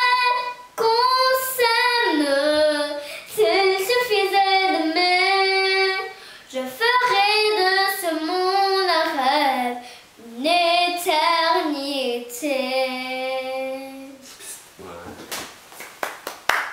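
A young girl singing a French ballad unaccompanied, in long held phrases that slide in pitch, with short breaks for breath between them. Her singing stops about two seconds before the end.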